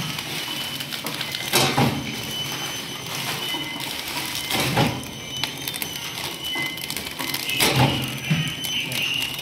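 Horizontal flow-wrap packing machine running steadily as it wraps bars in plastic film, with a constant mechanical whir and a louder clattering noise about every three seconds.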